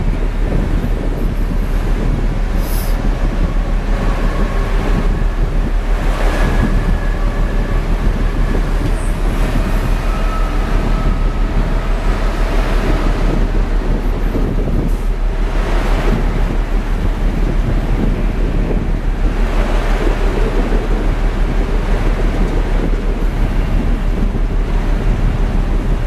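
Wind buffeting the microphone over the steady rumble of heavy surf, with a louder wave breaking and hissing several times.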